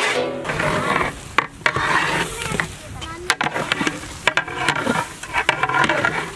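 A long metal spatula stirring and turning a big pot of steaming cooked mutton biryani: rice rustling, with the blade scraping and knocking against the pot many times.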